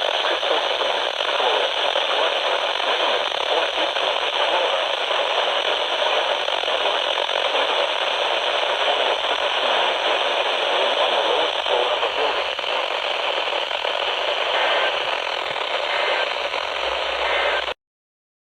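Radio static: a steady hiss with crackle from a radio receiver carrying no clear voice. It cuts off abruptly near the end.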